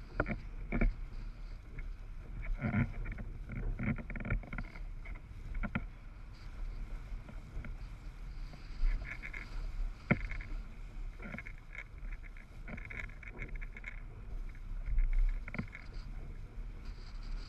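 A windsurf board and rig sailing over small chop: irregular sharp knocks and slaps as the board hits the waves, over a low steady wind rumble on the microphone.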